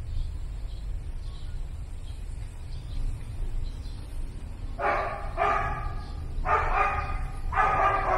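A dog barking four times in quick succession in the second half, each bark somewhat drawn out, over a steady low rumble.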